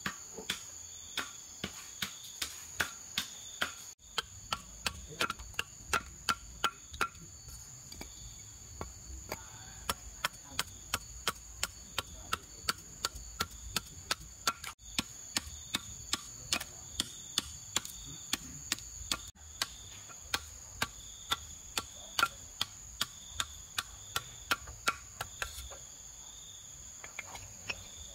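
Machete blade striking and splitting a piece of wood on a wooden block, sharp chops about three a second. A steady, high-pitched insect trill runs under it.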